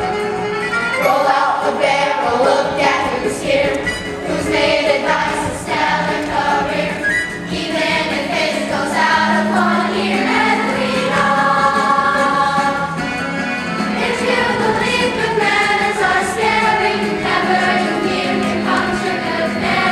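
Group of voices singing a musical-theatre number together over instrumental accompaniment.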